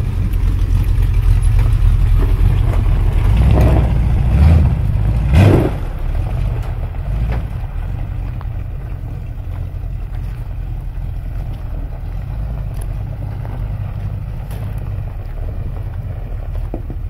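Lifted pickup truck's engine running loud, revving up twice about four and five and a half seconds in, then settling to a steady run.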